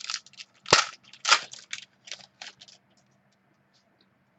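Trading cards and packs being handled on a table: a run of sharp clicks and snaps, the two loudest about a second in, dying away after a few seconds.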